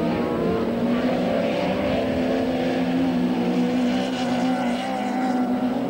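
Several small grass-track racing cars' engines running hard together as they race round the circuit, their notes wavering slightly up and down.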